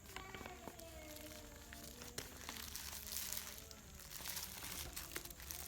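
Plastic packaging crinkling and rustling as a parcel is handled and torn open, with a few sharp crackles and clicks.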